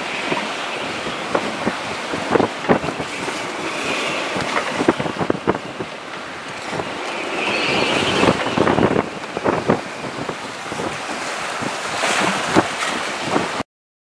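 Strong wind buffeting the microphone over rough sea rushing and breaking around a small sailing yacht, with swells of hissing spray and scattered short knocks. The sound cuts out briefly just before the end.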